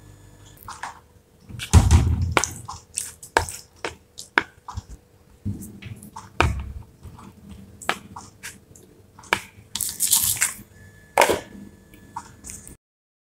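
A metal spoon mixes chicken pieces into a thick yogurt marinade in a plastic bowl, giving wet squelches and irregular clicks and knocks of the spoon against the bowl. Near the end a plastic lid is pressed onto the bowl.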